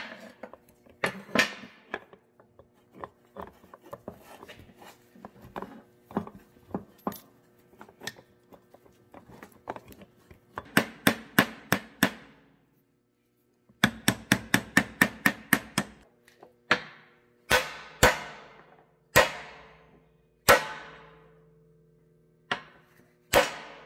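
Hammer blows on a driveshaft universal joint as a new U-joint is fitted. Light scattered taps first, then two quick runs of rapid strikes around the middle, then single harder blows about a second apart, each ringing briefly.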